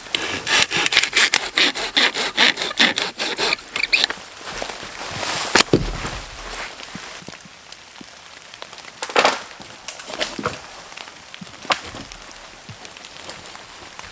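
Hand saw cutting through a branch of wet firewood in quick, even back-and-forth strokes for about four seconds. Then comes a single loud crack, and a few scattered knocks and cracks of wood.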